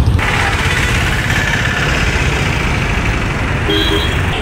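Busy street traffic close by: motorcycle and other vehicle engines running and idling, a steady low rumble. A short faint tone sounds near the end.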